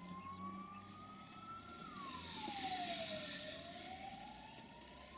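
An emergency-vehicle siren wailing faintly: its pitch rises slowly for nearly two seconds, falls for about a second and a half, then rises again.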